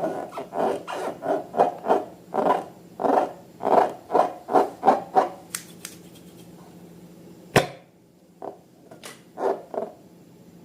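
Slime being squeezed and kneaded by hand, wet squelches coming about three times a second for around five seconds, then a sharp snap and a few lighter clicks.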